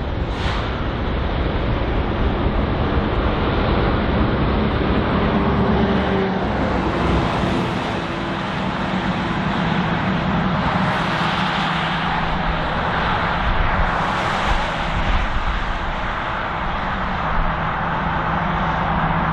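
Diesel locomotives of an oil train running past with a steady engine drone, followed by the rumble of the tank cars. Road traffic swells past several times over it.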